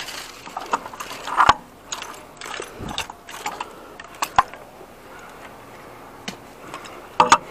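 Irregular metal clicks and clanks of a pipe wrench and scrap metal being handled. Scattered knocks come over the first few seconds, then a quieter stretch, then a quick cluster of sharp clicks near the end.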